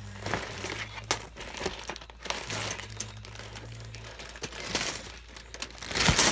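Plastic LEGO parts bags and the cardboard box crinkling and rustling as they are handled, with a louder burst of crinkling near the end.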